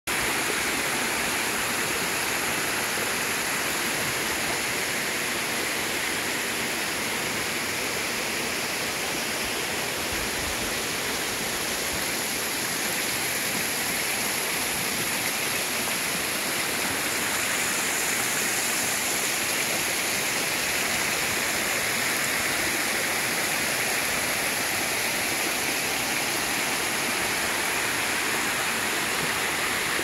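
Small waterfall: water sliding down a sloping rock face into a pool, making a steady rush.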